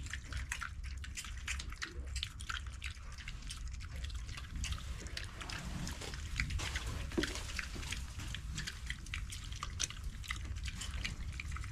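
Two Idaho Pasture piglets eating: a fast, irregular run of small wet smacks and crunches, over a low steady rumble.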